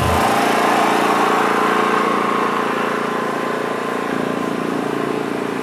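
A small engine running steadily at constant speed, fading slightly over the few seconds.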